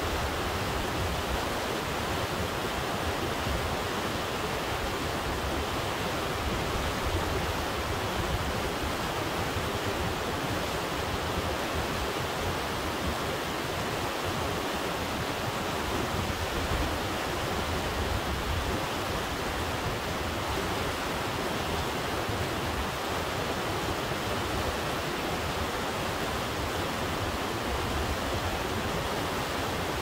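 Glacier-fed river flowing: a steady, unbroken rush of water.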